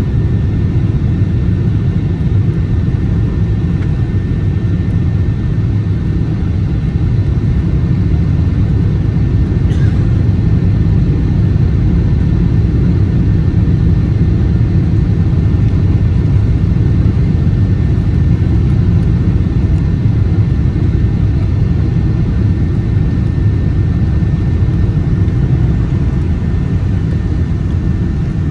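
Cabin noise inside a Boeing 777-300 airliner on approach to landing: a steady low rumble of jet engines and airflow, with a faint steady high whine above it.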